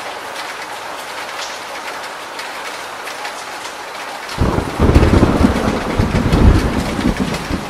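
Steady rain, with water dripping and streaming off a roof edge. About four seconds in, a loud, deep rumble of thunder breaks over it and rolls on for about three seconds.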